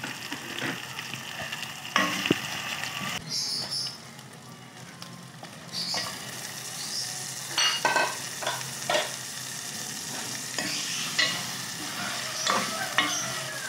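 Onions and raw chicken pieces sizzling in hot oil in a metal kadai, with a steel spoon scraping and clinking against the pan as they are stirred. The sizzle dips into a brief lull about a third of the way in.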